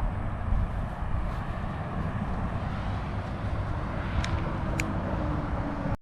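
A car driving, with steady road and engine rumble. Two short sharp clicks come about four and five seconds in, and the sound cuts off abruptly just before the end.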